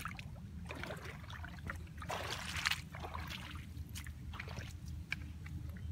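Footsteps splashing through shallow muddy water, with a louder splash and slosh about two and a half seconds in, over a steady low rumble.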